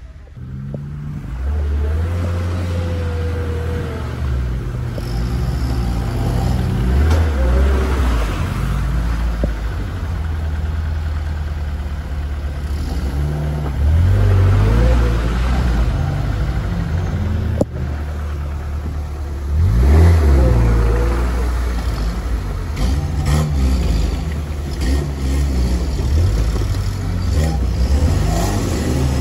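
Off-road vehicle's engine running hard in low gear, revving up and dropping back several times.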